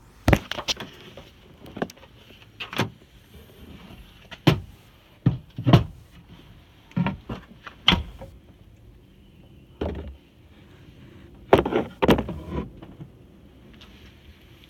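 A 2008 Chevy TrailBlazer liftgate being braced open by hand: a string of about a dozen irregular clunks and knocks, some with a short scrape, as a prop is set against the raised gate.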